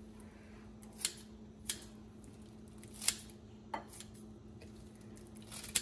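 Kitchen scissors snipping through kimchi (fermented napa cabbage), about five sharp snips at uneven intervals. A faint steady hum runs underneath.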